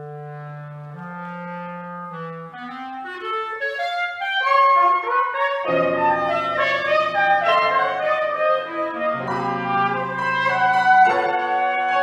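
Clarinet, trumpet and piano trio playing contemporary chamber music: long low held notes, then a rising line of notes, and about six seconds in the sound thickens into dense, louder chords.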